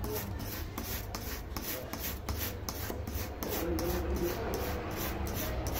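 A brush scrubbing a hard disk's circuit board wet with benzene, in rapid, regular back-and-forth strokes, over a steady low hum.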